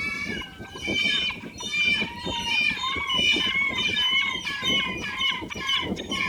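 A flock of birds calling together, many short arching calls overlapping and repeating a couple of times a second.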